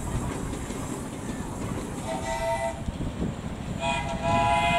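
Miniature steam train running and pulling away with a steady low rumble, its steam whistle sounding a short multi-note chord about two seconds in and a longer, louder blast near the end.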